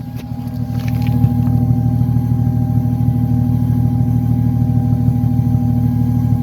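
Toyota 1JZ-GTE turbocharged straight-six engine running, with the ticking noise that comes on after about 20 minutes of driving. It grows louder over the first second, then holds steady with a faint whine over the engine note.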